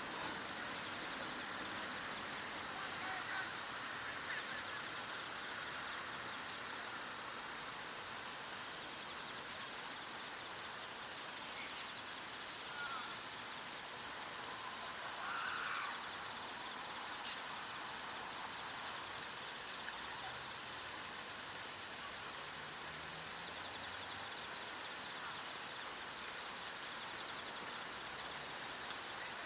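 Steady rush of flowing water, with a few faint, brief calls over it, the clearest a little past halfway.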